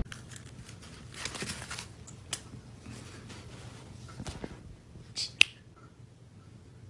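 Faint scattered clicks and rustling, with a brief hiss and one sharp click a little over five seconds in.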